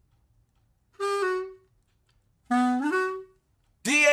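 Music intro: two short saxophone-like phrases, each note sliding up in pitch, with silent gaps between them. The full beat comes in near the end.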